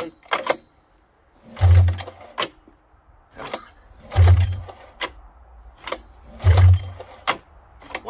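Polaris 440 Pro X snowmobile's fan-cooled two-stroke engine being pull-started with the recoil rope, choke on. Three hard pulls about two and a half seconds apart, each a rope whir with a cranking chug, and the engine does not fire between them.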